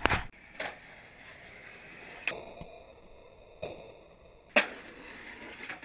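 Skateboard clacks and impacts on concrete and brick: several sharp knocks from the board popping and landing, the loudest a hard slap about four and a half seconds in.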